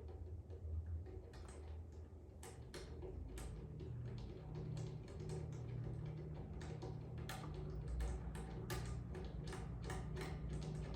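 Irregular light clicks and taps of small banjo hardware and tools being handled and fitted, coming more often in the second half, over a low steady hum.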